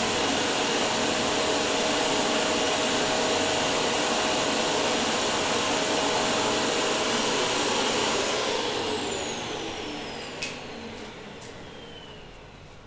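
Vacuum cleaner running steadily, drawing air through a homemade plumbing-pipe cyclone dust separator, then switched off about two thirds of the way through, its motor whine falling as it spins down. A few sharp clicks come near the end.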